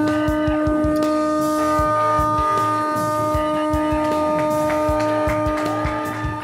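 A conch shell blown as a horn, sounding one long, steady note held for about six seconds.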